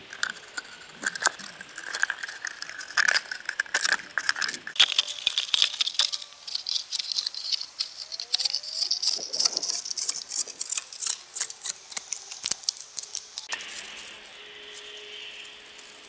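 Thin plastic bottle crinkling and crackling as a small knife blade in a wooden handle slices it into a long strip, with many small clicks and a scraping hiss that rises in pitch. The sound turns to a steadier hiss near the end.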